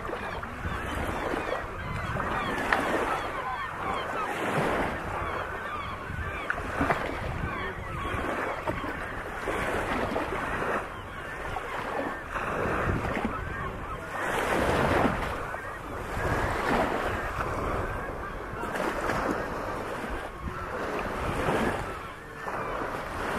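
A continuous din of many waterbirds calling, as from a nesting colony, over small waves lapping on a sandy shore and wind on the microphone.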